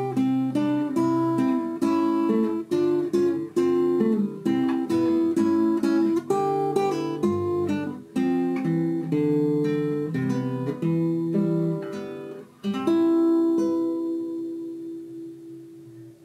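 Acoustic guitar music: a run of picked notes, ending on a chord about three-quarters of the way through that rings out and slowly fades.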